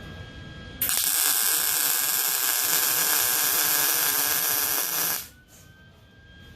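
Welding arc crackling and hissing as a bead is run on the steel frame rail: one continuous run of about four seconds that starts abruptly about a second in and cuts off sharply.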